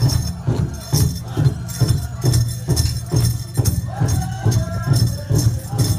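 Powwow drum group singing over the steady beat of a large shared drum, about two beats a second.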